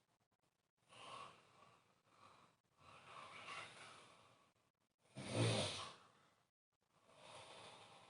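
A sleeping person snoring: four noisy breaths, the third, about five seconds in, a loud snore with a low rattle.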